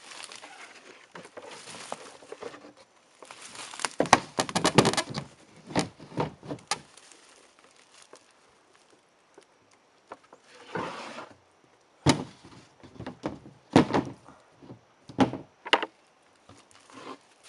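Irregular knocks and thunks, several in a quick cluster about four seconds in and more scattered through the second half, between stretches of scraping or rustling.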